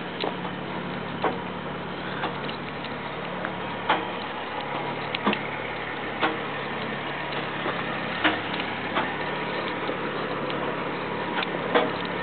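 An engine idling steadily with a low hum, with sharp irregular clicks every second or two over it.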